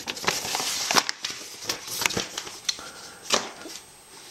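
A large folded paper instruction sheet rustling and crinkling as it is handled, followed by a few light knocks and clicks, the sharpest about three seconds in.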